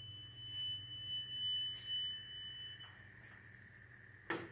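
Steady pure 3 kHz wow-and-flutter test tone playing back from a reel-to-reel tape machine running at 76 cm/s. The tone holds an even pitch and cuts off just under three seconds in. A few soft knocks and a sharp click follow near the end.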